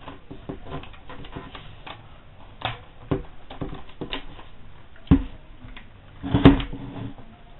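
Irregular plastic clicks and knocks as a Virtue Crown paintball hopper lid is handled and fitted onto an extension collar. The loudest clatter comes about six and a half seconds in.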